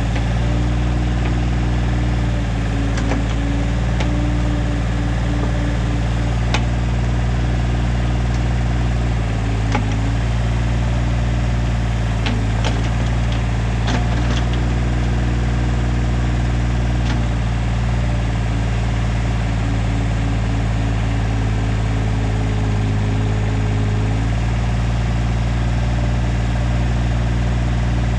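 X320 mini excavator's diesel engine running steadily as it works its hydraulic arm and bucket digging a pit, with the pitch shifting slightly a few times under load. A few sharp clicks and knocks come through in the first half or so.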